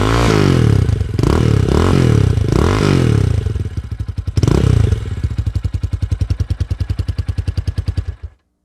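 Italika RT250 250 cc motorcycle engine revved through its exhaust in several quick blips, then idling with an even pulse, stopping abruptly near the end.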